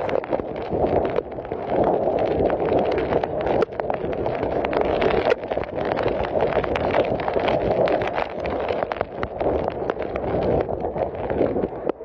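Strong wind gusting against the microphone: a loud, uneven rushing noise, with many quick rattling knocks through it.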